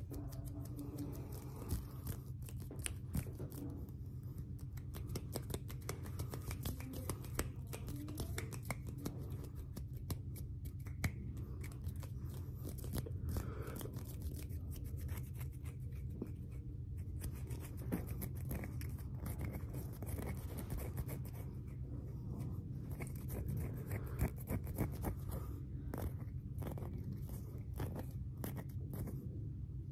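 ASMR hand sounds close to the microphone: fingers and palms rubbing, pressing and flicking, making a dense, irregular run of crisp little clicks and rustles over a steady low hum.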